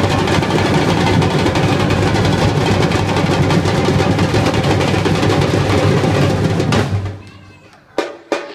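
Batucada drum ensemble of surdo bass drums and smaller drums playing a dense, fast groove that stops abruptly about seven seconds in, followed by two sharp single hits near the end.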